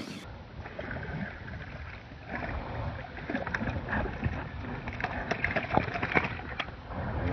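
Hooked fish splashing and thrashing at the water's surface, over small waves lapping against the boat, in a run of short, uneven splashy noises.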